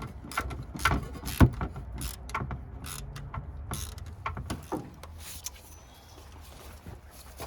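Irregular metallic clicks and knocks of hand tools at work in a car's engine bay during a serpentine belt change, with one loud knock about a second and a half in.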